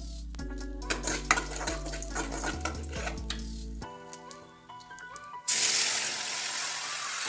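Background music with a utensil clicking and stirring in a pan, then a loud sizzle of food in hot oil that starts suddenly about five seconds in.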